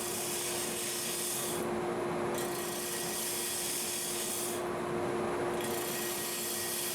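A 1/2-inch bowl gouge cutting a spinning Osage orange blank on a wood lathe, roughing it toward shape. The hissing cut fades twice for about a second between passes, over a steady hum.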